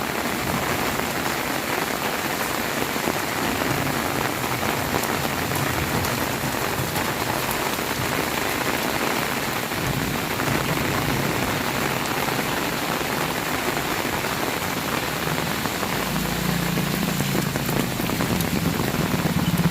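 Heavy rain pouring steadily. A low steady hum comes in near the end.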